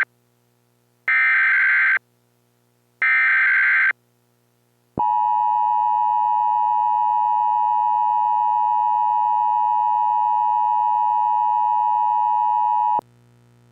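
Emergency Alert System tones: two one-second bursts of the warbling SAME data header about a second apart, then, about five seconds in, the steady two-tone attention signal held for about eight seconds and cut off sharply.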